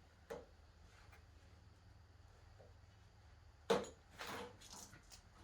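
Handling noises: a light click, then a sharp knock about two-thirds of the way in, followed by a few softer rustles or scrapes.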